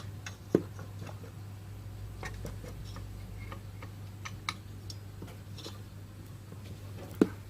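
Scattered light clicks and taps of small tools and parts being handled while an inverter welding machine is reassembled, over a steady low hum.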